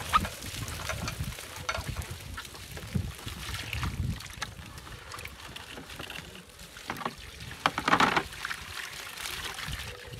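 Water splashing and sloshing around a small boat, with scattered knocks and a larger splash about eight seconds in, over wind buffeting the microphone.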